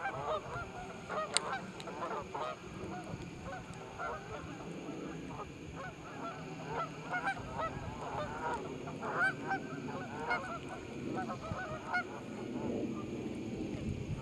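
A flock of geese honking: many short calls overlapping in quick, continuous succession.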